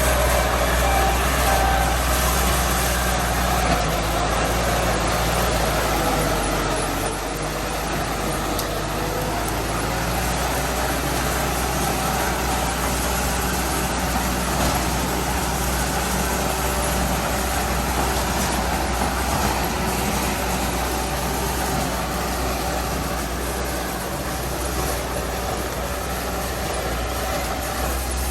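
Heavy diesel earthmoving machinery running at work, a steady engine drone with a deep low rumble that eases off briefly about seven seconds in.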